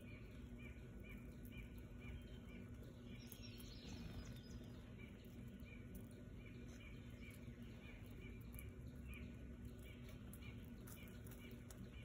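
Faint outdoor ambience: a steady low rumble with a run of short high chirps at one pitch, about three a second. The chirps fade out about four seconds in and come back faintly near the end.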